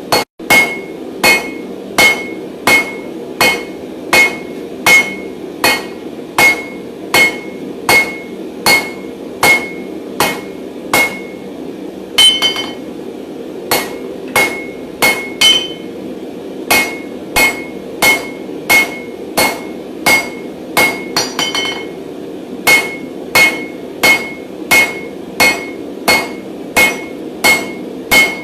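Blacksmith's hand hammer, about 1.2 kg, striking hot mild steel bar on an anvil in a steady rhythm of about one and a half blows a second, each blow ringing, drawing out the bar. The rhythm breaks briefly near the middle, and a few quick lighter taps come a little later.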